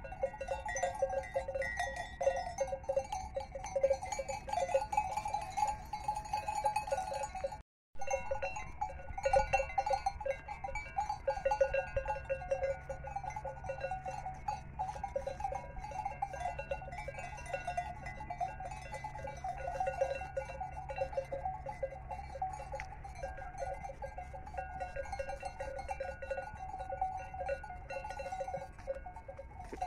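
Bells on a grazing flock of Merinolandschaf sheep, clanking continuously as the animals move and crop grass. The sound cuts out completely for a moment about eight seconds in.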